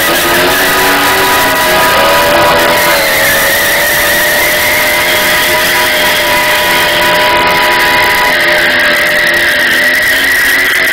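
BMW E30's rear tyres squealing steadily in a burnout, with its engine held at high revs.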